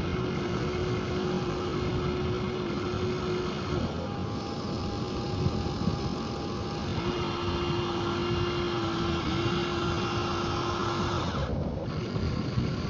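Radio-controlled model vehicle's electric motor and gearbox running with a steady whine that shifts slightly in pitch, over a noisy rattle, with a brief drop-out about eleven seconds in.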